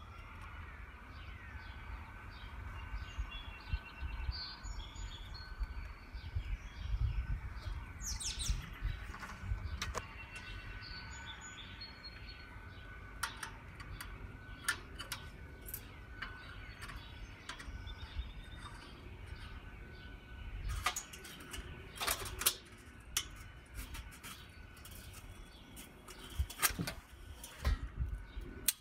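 Birds chirping in the background, with scattered light knocks and clinks from metal kettle-grill parts being handled as a leg is fitted into the bowl. A low rumble runs underneath.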